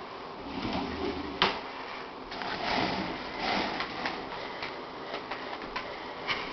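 Scattered plastic clicks and knocks from a child's ride-on toy ATV, with one sharp click about one and a half seconds in.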